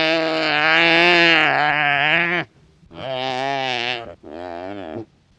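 Wildebeest calling: one long drawn-out call with a wavering pitch, then after a short pause two shorter wavering calls in quick succession.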